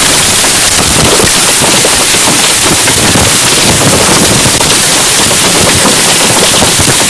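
Hail pelting a car's body and windshield: a loud, unbroken clatter of rapid hailstone impacts over a rush of heavy rain.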